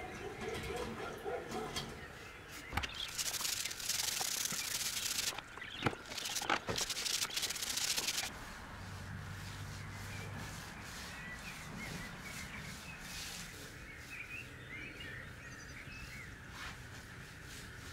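A hand tool scraping and rubbing a plastered wall in a rough stretch of strokes lasting about five seconds, with a few knocks among them. After it stops, birds chirp.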